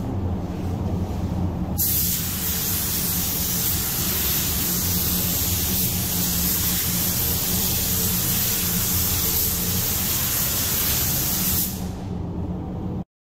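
Gravity-feed automotive spray gun laying down urethane paint: a steady hiss of air and atomised paint that starts about two seconds in and stops near the end. Under it runs a steady low hum.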